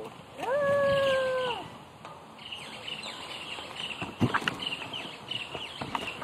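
A single loud held call, about a second long and steady in pitch before dropping off, near the start. After it, small birds chirp faintly and repeatedly in the background.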